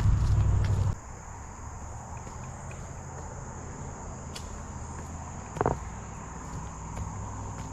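Insects in the woods chirring steadily at a high pitch. A loud low rumble fills the first second, and there is a single soft knock about two-thirds of the way through.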